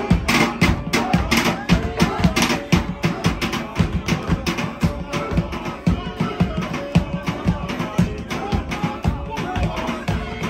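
Upbeat dance music with a steady, fast drum beat.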